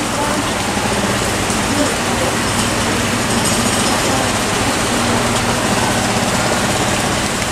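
Southeastern electric multiple-unit train standing at the platform with its onboard equipment humming steadily, under a steady hiss of rain.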